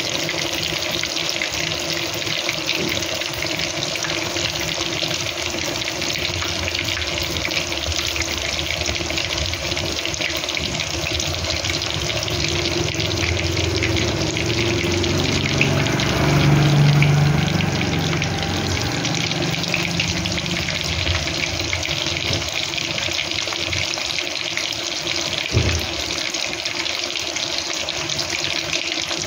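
Cabbage rolls stuffed with ground chicken sizzling steadily as they fry in oil in a pan. A low hum swells and fades about halfway through.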